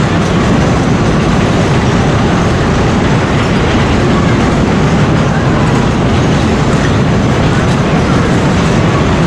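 A fairground ride in motion: a loud, steady rumble and clatter of a machine running without a break.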